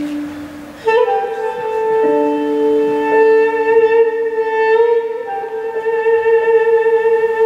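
Armenian duduk playing long held notes of a slow, mournful melody, with a new phrase starting about a second in. An electric keyboard holds a lower sustained tone beneath it.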